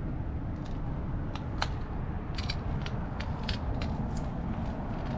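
Steady low rumble of city traffic, with a dozen or so scattered sharp clicks and ticks at irregular moments.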